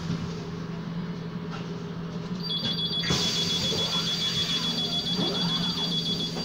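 Bus door warning signal: a rapid, high-pitched trilling beep starts about two and a half seconds in and keeps sounding, over the steady low hum of the SOR EBN 10.5 battery-electric bus standing at the stop.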